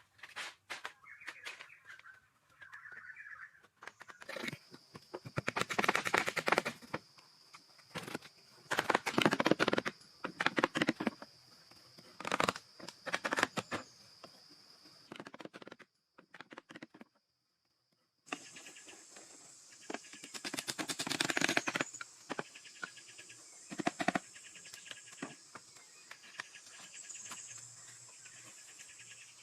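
Insects buzzing steadily in the background, with several loud bursts of a second or two of rough scraping and rustling from handwork with natural materials. Near the middle the sound drops out briefly, then the insect buzz returns higher in pitch.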